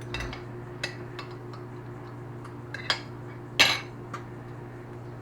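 A spoon clinking and scraping against a plate as food is moved around it: a few separate clinks, the loudest about three and a half seconds in, over a steady low hum.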